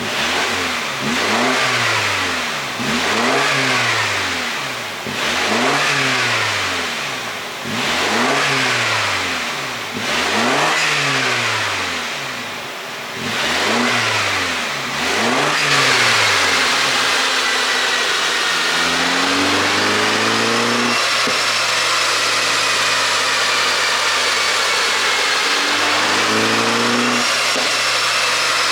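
Mini Cooper S F57's turbocharged four-cylinder with an ECU tune for exhaust pops, revved about seven times in a row. Each rev rises and falls over about two seconds, with crackles from the exhaust as it drops. After that the engine holds a steadier note with a high whine, rising briefly twice.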